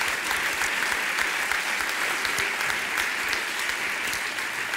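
Studio audience applauding, many hands clapping steadily.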